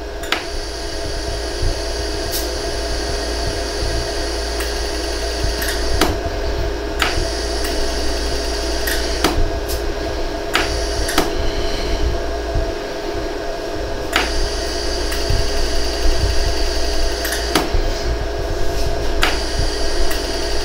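Pulsed jewelry laser welder running with a steady hum, broken by sharp single clicks every second or two at irregular intervals, each a laser pulse welding fine wire onto a hollow gold earring.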